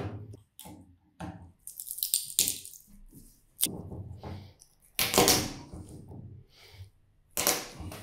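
Flat-blade screwdriver scraping and prying at the winding and hardened insulation of a microwave oven transformer, in several separate scratchy strokes with quiet gaps between, the loudest about five seconds in, and a short sharp click about three and a half seconds in.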